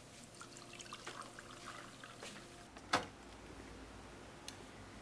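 Faint trickle of liquid with small crackles, followed by a single sharp click about three seconds in.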